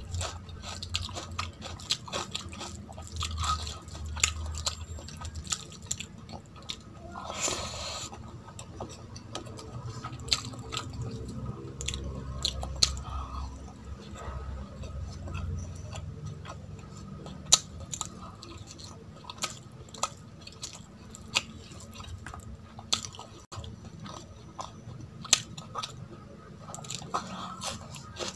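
Close-up eating sounds: a person chewing mouthfuls of rice and curry with many sharp wet mouth clicks, while fingers mix rice and curry on a steel plate. A brief noisy burst comes about seven seconds in.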